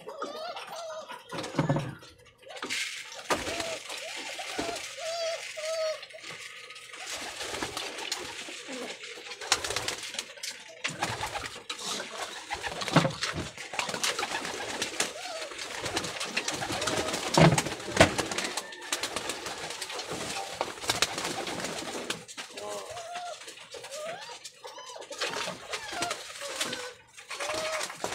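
Domestic pigeons cooing repeatedly, with wavering coos that come and go. Mixed in are sharp knocks and flaps of birds moving and taking off in the wire cage.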